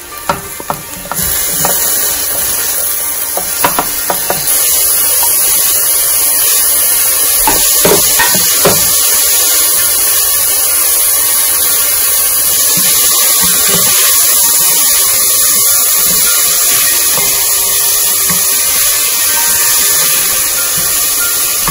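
Chopped tomatoes dropped into hot oil with frying onions, then a steady loud sizzle as they fry. The sizzle grows stronger a few seconds in. A wooden spatula knocks and scrapes in the pot now and then, most at the start and around eight seconds in.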